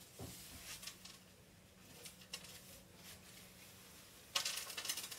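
Pet-cage bedding being scooped out by hand: scattered light clicks and rustles, then a louder rustling scrape from a little over four seconds in.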